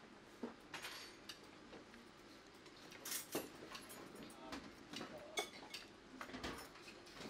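Serving tongs and a spatula clinking and tapping against metal pots, foil trays and plates while food is served from a buffet: faint, scattered clinks and knocks, a handful over a few seconds.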